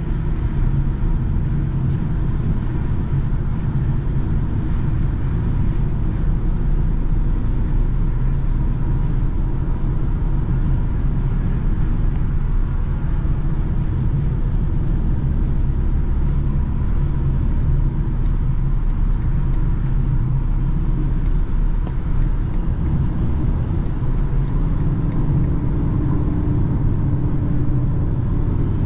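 Interior sound of a BMW cruising on the motorway: a steady low drone of engine and tyre-and-road noise heard from inside the cabin.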